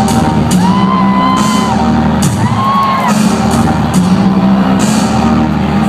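Loud, bass-heavy electronic dance music played live over an arena sound system, with a steady heavy bass line and two short gliding high tones over it.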